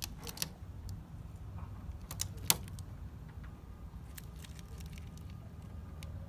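Hands handling a plastic tailgate letter and its adhesive tape backing: scattered small clicks and ticks, with one sharp click about two and a half seconds in, over a low steady rumble.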